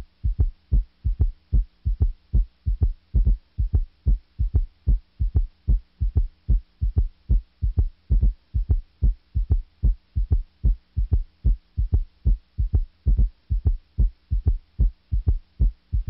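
Recorded heart sounds beating regularly over a faint steady hum. This is the auscultation of mitral valve prolapse: a dry mid-systolic click after the first heart sound.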